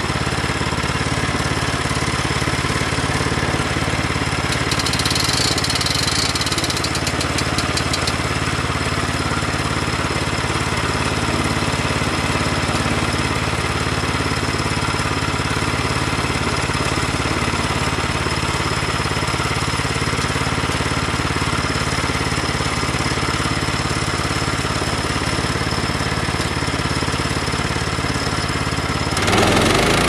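Portable band sawmill's engine idling steadily; about a second before the end it picks up and runs louder.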